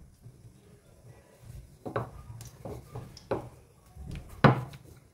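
Wooden rolling pin working dough on a rolling board, with a few irregular knocks and clacks; the loudest comes near the end.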